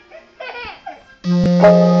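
A baby giggles and babbles briefly. Then, about a second and a quarter in, a loud, steady electronic note like an electric keyboard's starts abruptly and holds at one pitch.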